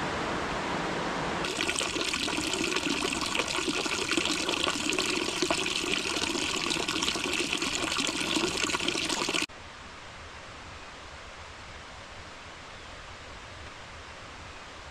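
Water pouring from a metal spout into a full stone fountain trough, a steady splashing stream that comes in about a second and a half in and cuts off abruptly about two-thirds of the way through. Before and after it there is only a quieter steady hiss.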